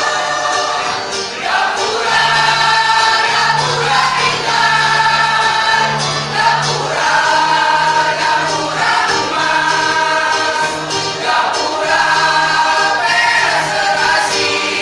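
Mixed choir of teachers singing in parts, holding notes that change every second or so over a low sustained bass line.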